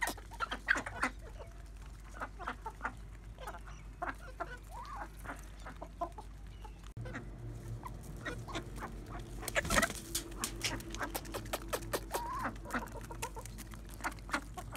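Chickens clucking as they crowd a hand and peck wheat grains from it, with many short sharp pecking clicks.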